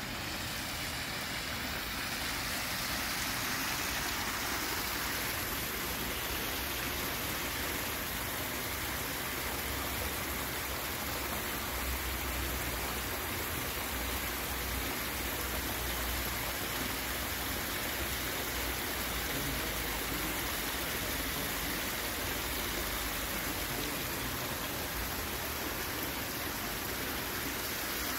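Steady rush of water running down a stepped stone cascade.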